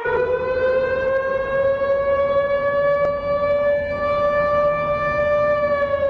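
Siren tone of an emergency alert alarm: one held, buzzy tone that climbs slowly in pitch and sags near the end.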